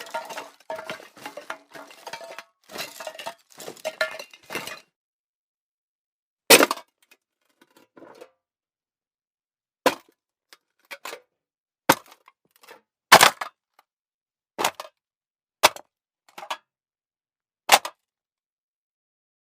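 Metal cans clinking and clattering together in a quick jumble for the first few seconds, then a run of about nine single sharp knocks of cans striking, spaced a second or two apart.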